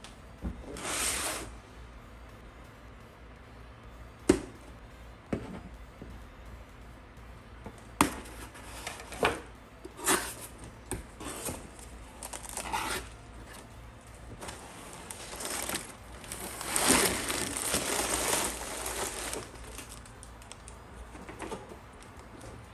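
A cardboard Lego set box being torn open and handled: scattered sharp clicks and knocks, short tearing and rustling sounds, and a longer stretch of crinkling and rustling in the last third as the plastic parts bags are moved about.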